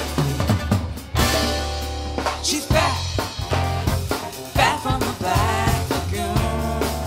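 Live band playing an instrumental passage: a bowed cello with sliding, wavering notes over drum kit and bass.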